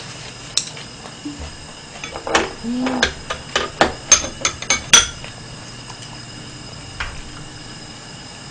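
Chopsticks and a ladle clinking and knocking against the pot of pork soup and the dishes: a quick run of sharp clinks in the first five seconds, then just one more faint click.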